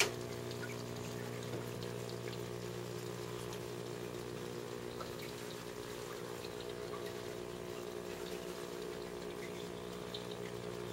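Aquarium powerhead and filter running: a steady hum with the light wash of circulating water, and a single click at the very start.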